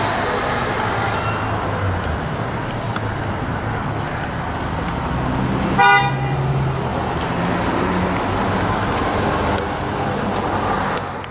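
Steady city street traffic noise, with one short car horn toot about halfway through.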